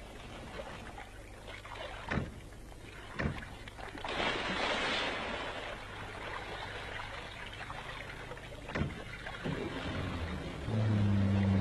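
Radio-drama sound effects: a steady rushing hiss with a few sharp knocks and a louder surge of noise about four seconds in. Near the end a low, pitched drone comes in.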